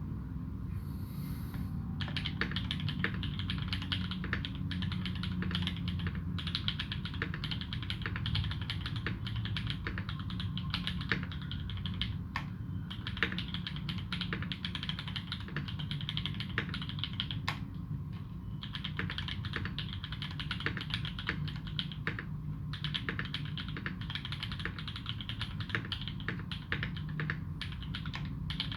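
Continuous fast typing on a UTD360C custom mechanical keyboard with lubed Alpaca v2 linear switches and GMK Dolch keycaps, a dense run of keystroke clacks with brief pauses a few times, over a low steady hum.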